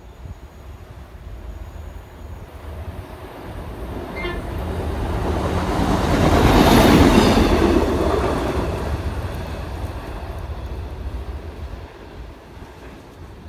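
SEPTA Route 101 Kawasaki light-rail trolley car running past on steel rails: its wheels and electric running build up as it approaches, are loudest about seven seconds in as it passes, then fade away. A short high tone sounds about four seconds in.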